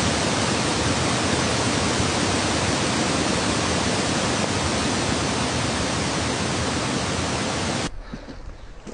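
A steady, even hiss of noise that cuts in suddenly and cuts off abruptly about eight seconds in.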